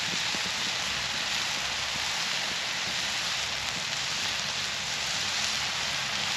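Sliced peppers and onions sizzling steadily in cast iron over a wood campfire as they char.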